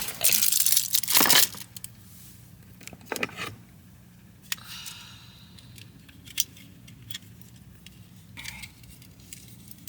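Batteries being swapped in a ring light by hand: a loud stretch of rustling and tearing for about the first second and a half, then scattered small clicks and rattles of batteries and the battery compartment.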